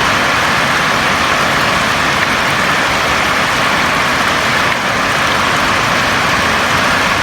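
Steady rain falling on a house roof, an even hiss without breaks.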